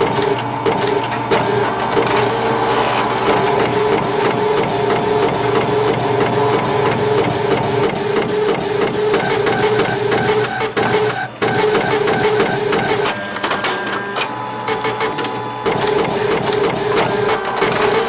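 Inkjet printer at work: the print-head carriage shuttles and the feed mechanism whirs in a steady mechanical pulsing, with a brief break about eleven seconds in.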